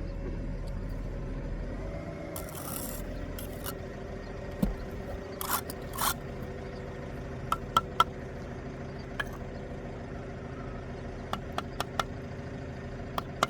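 Brick-laying work with a steel trowel and mortar: short scrapes of mortar being spread and cut off, then a string of sharp taps as bricks are set into the mortar bed. A steady hum runs underneath.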